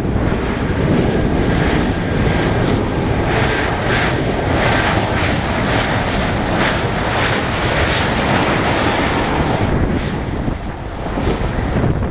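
Airbus A320-232's IAE V2500 turbofan jet engines running as it lands, a loud steady rush that is strongest in the middle and eases near the end.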